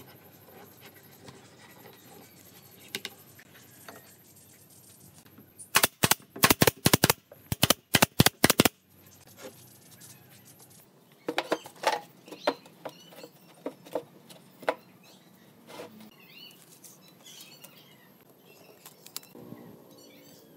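A rapid run of about a dozen loud, sharp cracks in two quick groups about six seconds in, followed by scattered quieter knocks and clatter of wood and clamps being handled.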